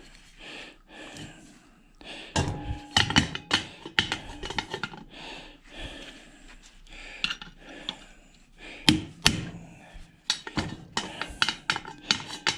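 Hand tools knocking, tapping and clinking against a washing machine motor being torn apart: irregular metal clanks with scraping between, and a few louder strikes about two to three seconds in and again around nine seconds.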